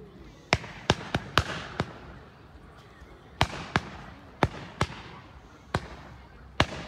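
Fireworks going off in a display of rising gold comets: about eleven sharp bangs in irregular groups, several close together in the first two seconds, more in the middle, and a last pair near the end.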